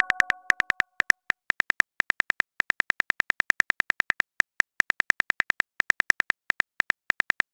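Phone keyboard typing clicks: a rapid, even run of short ticks, several a second, as a text message is typed out letter by letter. A chime's tones fade out in the first second.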